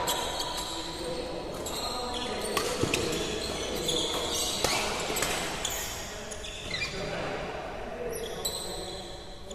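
Doubles badminton rally: rackets striking the shuttlecock with sharp cracks at irregular intervals, and players' court shoes squeaking and patting on the floor, echoing in a large hall.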